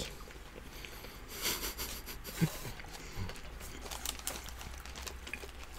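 Faint crinkling of a paper kebab wrapper being handled, about a second in, with a few soft mouth sounds from chewing.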